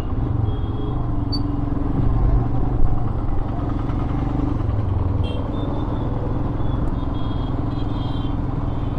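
Royal Enfield Himalayan's single-cylinder engine running steadily while the motorcycle is ridden.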